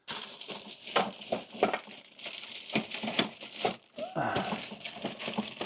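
Rummaging through tools and items while searching for a brush: continuous rustling and crinkling with many small clicks and knocks.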